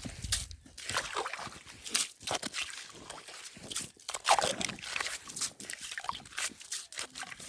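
Wet slush and water on lake ice sloshing and crunching in irregular, uneven strokes.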